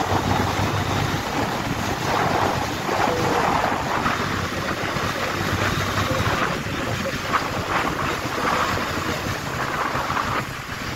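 Wind rushing over the microphone of a moving motorcycle, with the bike's engine running underneath as it cruises along.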